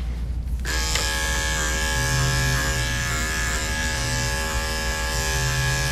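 Electric dog-grooming clipper switched on about half a second in, then running with a steady buzz as it clips the fur on a small dog's front leg.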